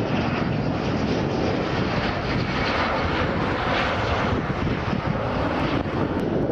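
Military jet fighter taking off, its jet engines at takeoff power making a loud, steady rushing noise.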